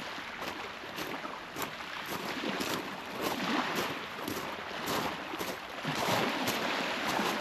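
Footsteps at a steady walking pace, about two a second, over a continuous wash of sea water and surf that swells a little about halfway in and again near the end.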